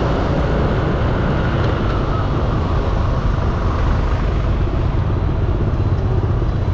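Riding a motor scooter through city traffic: a steady, loud low rumble of engine, road and wind noise, with no distinct events.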